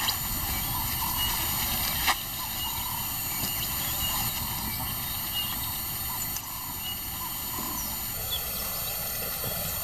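Steady outdoor ambience with faint, scattered short chirps and one sharp click about two seconds in.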